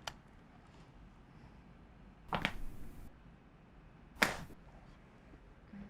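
Two sharp joint cracks from chiropractic adjustments, about two and a half and about four seconds in, the second the louder, after a faint click at the start.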